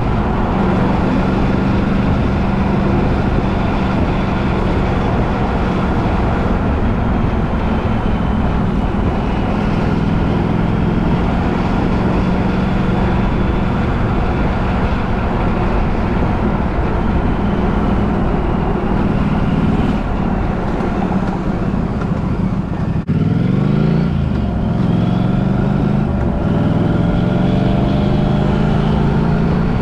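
A vehicle running in motion: a steady low drone with road or running noise. About 23 s in there is a short break, then the pitch rises steadily.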